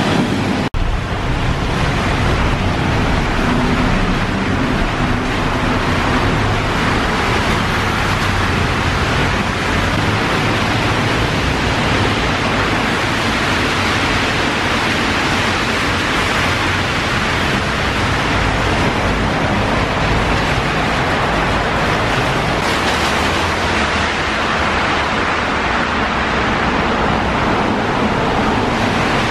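Steady loud rush of heavy rain, heard from inside a concrete road tunnel.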